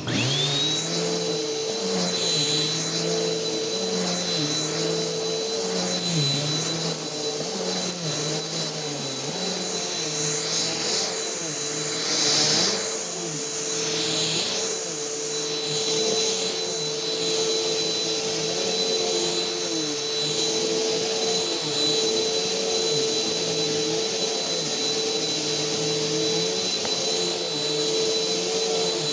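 Vacuum cleaner running steadily, its high motor whine rising to a steady pitch in the first second after switch-on. Its lower tones waver as it is worked across the floor, with a brief louder rush of suction about twelve seconds in.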